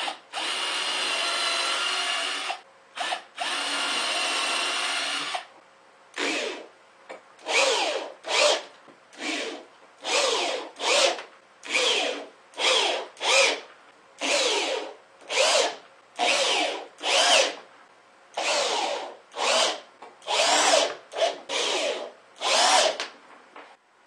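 Electric hand drill working into the plywood back of a wooden frame. It runs in two long steady spells of about two seconds each, then in about twenty short trigger bursts that rise and fall in pitch, as when driving screws.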